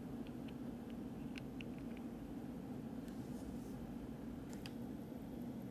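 Steady low room hum with a few faint, light clicks as the gold watch case is handled and set down on the bench mat.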